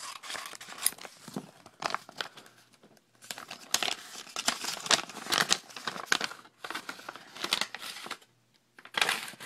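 Paper mail envelope being torn open and handled: irregular bursts of tearing and crinkling paper, busiest in the middle, with a brief pause near the end.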